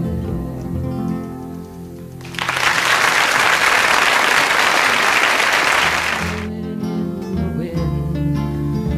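Music, cut into about two seconds in by some four seconds of loud applause, after which the music carries on.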